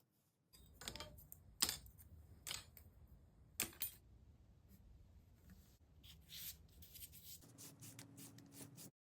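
Faint handling noises: scattered clicks and scrapes over a low steady hum, all cutting off suddenly near the end.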